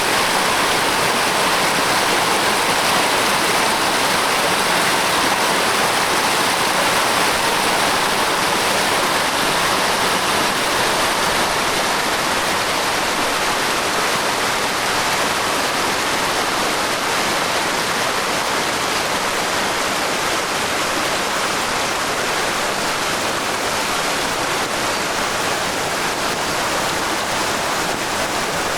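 A rain-swollen stream rushing steadily, an even wash of water noise that eases a little in the second half.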